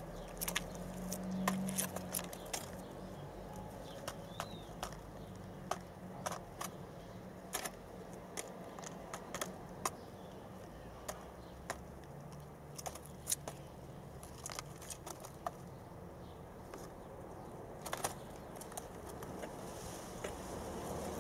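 Young white doves shuffling and preening in a straw nest: scattered light clicks and scratches with feather rustling.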